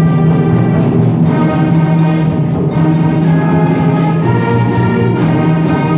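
School concert band playing sustained chords, with clarinets and brass. Bright, high ringing notes enter over the top about a second in.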